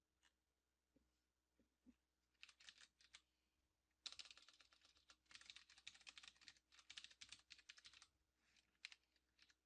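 Faint computer keyboard typing: a few keystrokes about two and a half seconds in, then a fast run of keystrokes from about four to eight seconds in, and a few more near the end.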